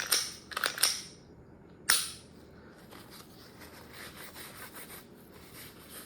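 Sharp metallic clicks from a Glock pistol being handled just after reassembly: a quick run of clicks at the start and one loud single click about two seconds in, then faint rubbing and handling noise.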